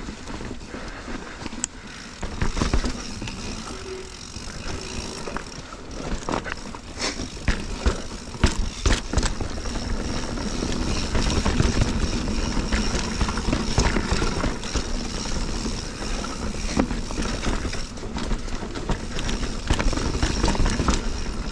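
Mountain bike rolling fast over rocky singletrack, heard through a rider-mounted action camera: steady tyre and wind rumble with frequent sharp knocks and rattles as the wheels strike rocks.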